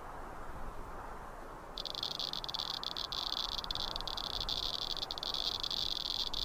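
An insect buzzing at a high pitch in a dense, rapidly flickering drone. It starts suddenly about two seconds in over a faint hiss.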